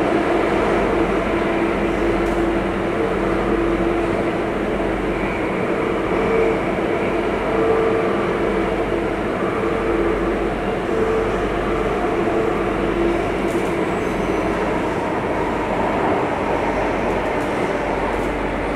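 Singapore MRT Circle Line train running, heard inside the passenger car: a steady rumble of wheels and running gear, with a faint wavering whine that comes and goes through the first half or so.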